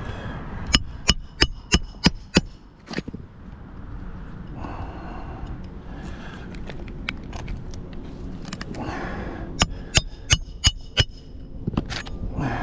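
Two quick runs of sharp knocks with a slight ring, about three a second: five or six near the start and five more near the end, with softer scraping in between.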